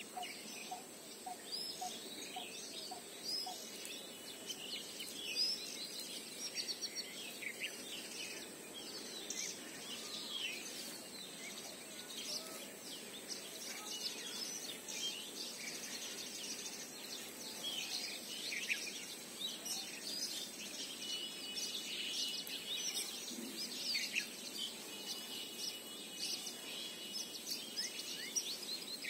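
Many birds chirping and calling in quick short notes over a steady outdoor background hiss, with a held high trill twice in the last third.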